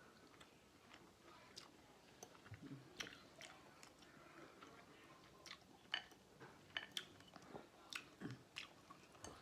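Faint, close-up mouth sounds of a person eating seafood boil: chewing with scattered wet smacks and clicks, coming more often in the second half.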